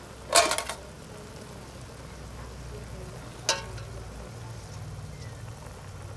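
Broth bubbling faintly over a steady low hum as a whole chicken simmers in cola in a large aluminium pot. A short rattling clatter comes about half a second in, and a single sharp knock at about three and a half seconds.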